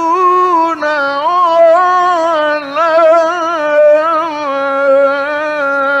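A male Quran reciter's voice chanting in the ornamented mujawwad style, holding long melismatic notes whose pitch winds up and down in fine turns. It breaks off briefly twice, about a second in and again near the middle.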